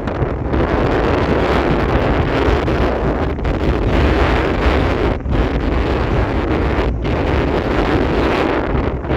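Strong wind blowing across the microphone: a loud, steady rumbling rush, with brief drop-outs about five and seven seconds in.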